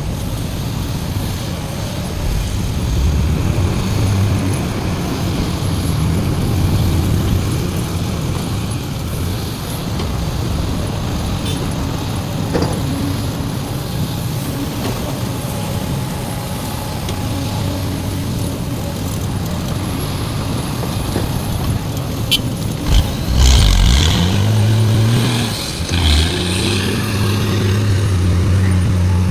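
Heavy diesel engines of a large excavator and a dump truck working, a steady engine drone throughout. About 24 s in, an engine revs up and settles into a steadier, higher drone, with a brief hiss of air alongside.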